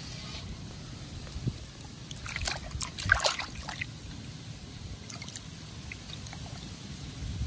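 Hands washing raw pork belly in a metal basin of water: splashing and sloshing, with a cluster of louder splashes about two to four seconds in and lighter ones later, over a low steady rumble.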